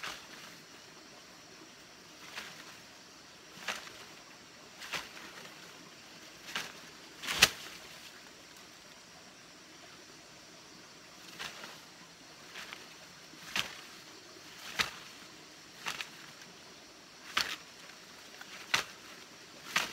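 Stick and leafy branch being swung hard to swat at wasps around their nest in a tree stump: about a dozen sharp swishes and whacks at irregular intervals, the loudest about seven seconds in.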